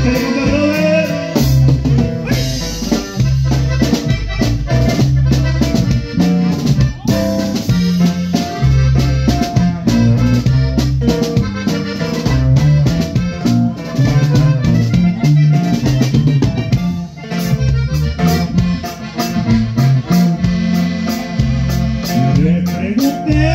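Live norteño band playing: accordion, guitar, bass and drum kit over a steady beat.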